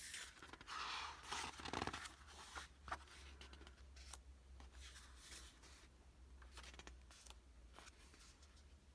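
Pages of a thick art book being turned by hand: the paper slides and rustles in soft swishes, mostly in the first few seconds, with faint taps of fingers on the pages.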